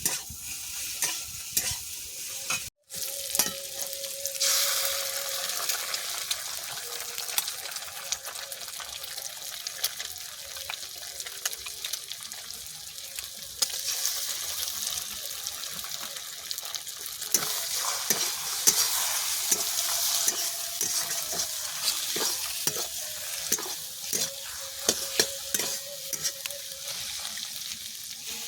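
Eggs and potatoes frying in hot oil in a pan, with a steady sizzle and the frequent clicks and scrapes of a spatula stirring against the pan. The sound cuts out for a moment just under three seconds in. From about four seconds in, the sizzle grows louder and brighter.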